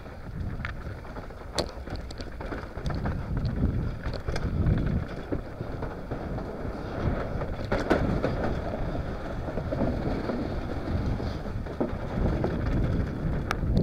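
Mountain bike riding fast down a dirt trail, heard from an on-board action camera: wind on the microphone and tyres rolling over the ground make a steady rumble. Scattered clicks and rattles from the bike come over bumps, with a sharper one a little under two seconds in, about eight seconds in, and near the end.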